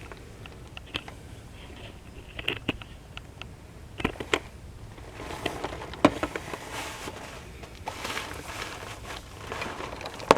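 Handling noises: scattered sharp clicks and knocks, with rustling between them that grows busier in the second half.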